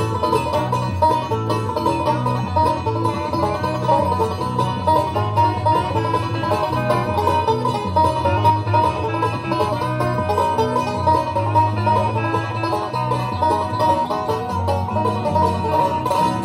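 Bluegrass band playing an instrumental breakdown: banjo picking over mandolin, acoustic guitar, steel guitar and electric bass, through a PA.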